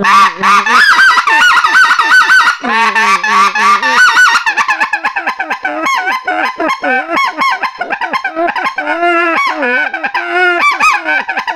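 Mania Zefir micro-diameter reed goose call for white-fronted geese, blown with cupped hands: a loud, unbroken run of goose honks that turns into faster, shorter clucking notes about halfway through. It has a distinctive husky rasp to its tone.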